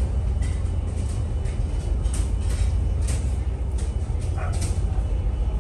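Steady low rumble of the ferry's engines and hull, heard from inside a passenger deck, with scattered light clicks and knocks.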